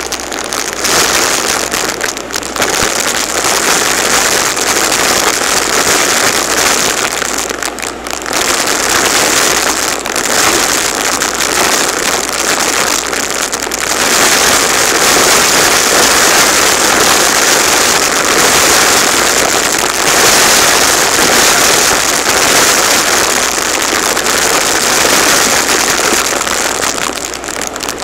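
Shark Lift-Away DuoClean upright vacuum running steadily with a loud, high hiss while it sucks up a spill of confetti from a hard floor, the pieces crackling and rattling as they are drawn into the clear dust cup.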